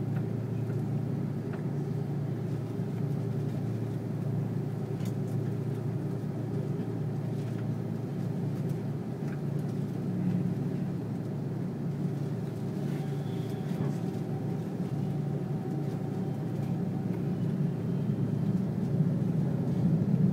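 Steady low rumble of an Airbus A330-300's engines and airflow heard from inside the passenger cabin, getting louder over the last couple of seconds.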